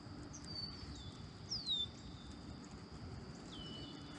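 Birds calling, about four short high whistles that slide downward in pitch, over a faint steady high tone.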